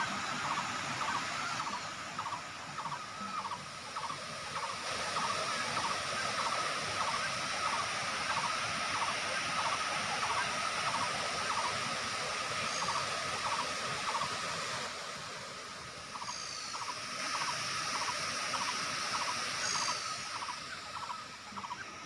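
Rushing water from small waterfall cascades spilling over travertine ledges into pools. A pulsing call repeats about twice a second throughout, and a few short high chirps come in the second half.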